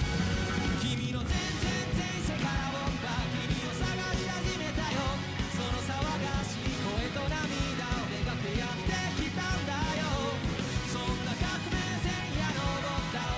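Rock music with a steady drum beat, guitar and a singing voice.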